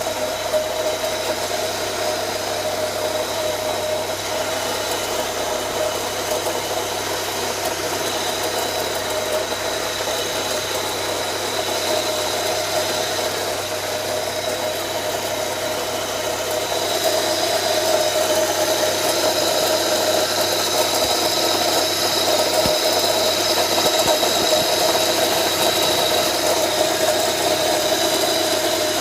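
Car engine idling steadily, with a constant noise from a failing air-conditioning compressor bearing. The sound gets somewhat louder a little over halfway through.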